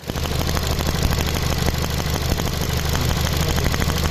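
Ford Fiesta engine idling steadily.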